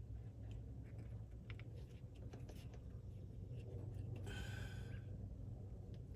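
Light, scattered clicks and scrapes of a small screwdriver working wire pins out of a plastic wiring connector, over a low steady hum. A short high-pitched tone sounds a little after four seconds in.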